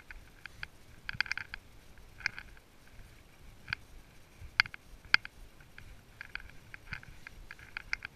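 A horse walking on a leaf-covered trail, heard close up from its head: soft hoof thuds with irregular light, ringing clinks of the bit and bridle hardware, several of them in quick clusters.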